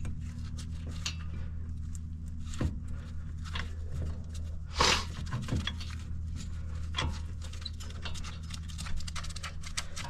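Small metal clicks and rattles of hand work on a brake caliper while the caliper bolts are being found and fitted, with one louder knock about five seconds in, over a steady low hum.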